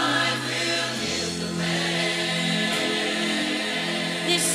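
Gospel music: a choir singing held notes over an instrumental accompaniment.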